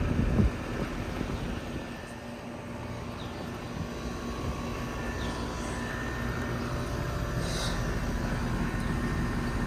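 2005 Carrier Infinity central air conditioner's outdoor condenser running: a steady drone of the fan's airflow with a low hum from the scroll compressor, which is muffled by a sound blanket.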